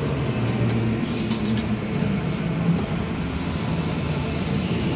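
A steady low mechanical rumble with a few light clicks about a second in and a brief high-pitched squeak near the middle.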